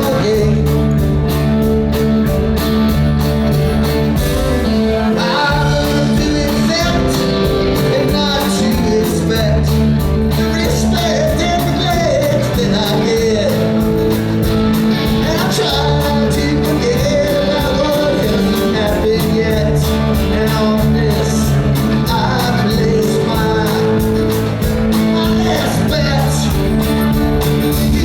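Rock band playing live: electric guitars, bass and a steady drum beat, with a lead vocal singing over the band.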